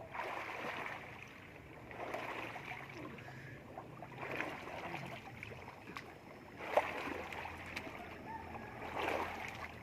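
Water splashing and sloshing in uneven swells every couple of seconds, with small clicks and one sharp tap about seven seconds in.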